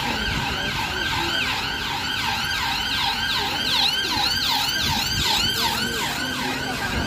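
Emergency vehicle siren on a yelp setting: a rapid rising-and-falling whoop repeated about three times a second, with a steady tone beneath it and traffic rumble.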